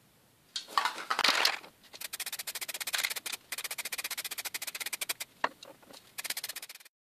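Aerosol can of spray enamel being shaken, its mixing ball rattling in quick, even runs, after a louder noisy burst about half a second in. The sound cuts off just before the end.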